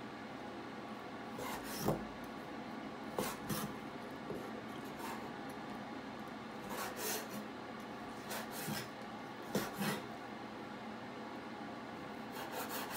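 Chinese cleaver slicing raw chicken breast on a wooden cutting board: the blade knocks on the board in separate sharp strokes every second or two, with a quicker run of cuts near the end. A faint steady hum lies underneath.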